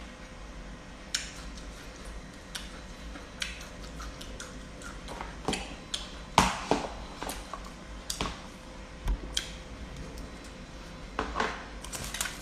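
A metal spoon scraping and knocking against a plastic food container, with scattered clicks and knocks of eating at a table. The loudest knocks come about six seconds in, and another cluster near the end.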